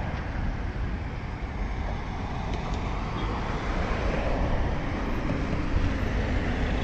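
Steady running noise of a moving vehicle, a low rumble with an even hiss above it.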